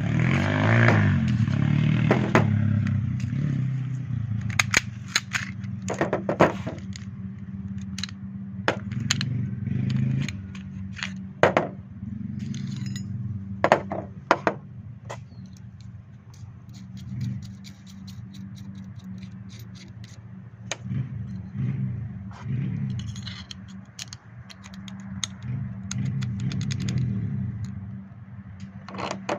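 Umarex Glock 17 replica pistol being handled and taken apart for its outer barrel swap: irregular clicks, scrapes and clatter of its parts, over a steady low hum.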